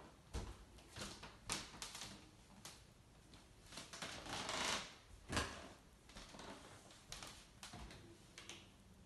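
Quiet handling noise from filming on a handheld phone: scattered light clicks and knocks, a rustle about four to five seconds in, then a sharper knock just after it.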